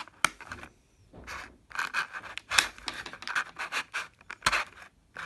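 Hands working at a clear plastic toy blister pack: irregular crinkling and scratching of the plastic, with a few sharp clicks.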